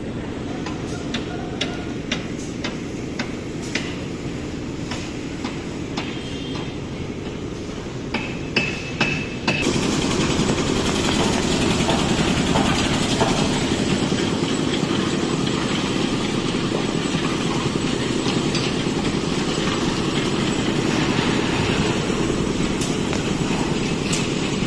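Construction-site sounds: a steady engine drone with scattered sharp knocks like hammer blows for the first ten seconds, then an abrupt switch to a louder, noisier machine sound that runs on.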